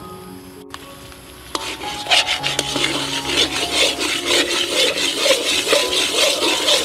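A spatula stirring and scraping a thick, gritty sweet mixture in a basin: a dense crackling rasp of many small clicks that starts about a second and a half in.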